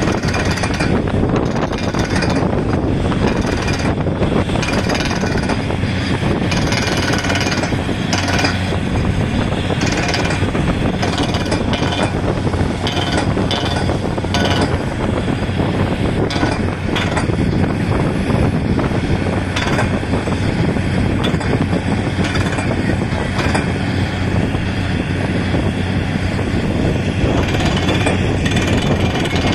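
Truck-mounted borewell drilling rig running at work: a loud, steady engine drone under a dense, rapid knocking from the drill string.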